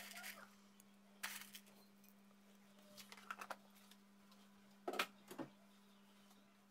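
Quiet room tone with a steady low hum and a few short, faint clicks and knocks, the loudest pair about five seconds in.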